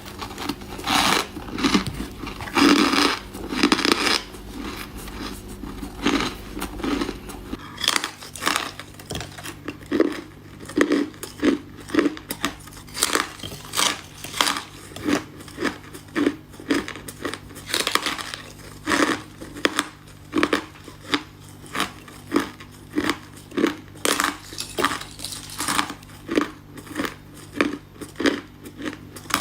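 Ice cubes bitten and crunched between the teeth close to the microphone, a dense cluster of loud crunches at first, then steady chewing at about two crunches a second.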